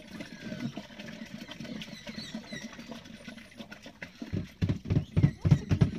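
Waste glugging and sloshing out of a caravan cassette toilet tipped into a dump point, coming in loud, irregular gulps from about four seconds in.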